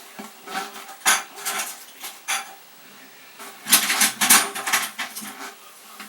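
Clinking and clattering of small hard parts being handled. There are sharp knocks about a second in and again about two seconds in, then a quick cluster of them around four seconds.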